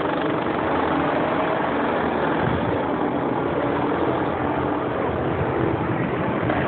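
Racing go-kart engines running steadily as karts drive the course.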